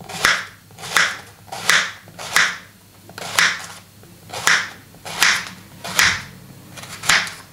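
A kitchen knife slicing a yellow zucchini into rounds on a plastic cutting board. There is a short cut about every three-quarters of a second, nine in all.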